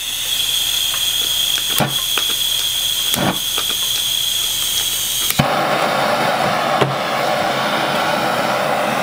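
Handheld propane torch: gas hissing from the open valve with a thin high whistle and a couple of clicks. About five seconds in the flame lights with a sharp click and then burns with a steady rushing noise, ready to heat a cable lug for soldering.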